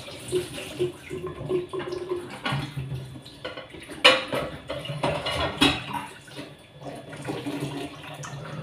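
Kitchen tap running into a stainless steel sink while dishes are washed by hand, with a few sharp clinks of crockery; the loudest comes about four seconds in.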